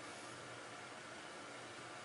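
Faint steady hiss of room tone, with no distinct sound from the work.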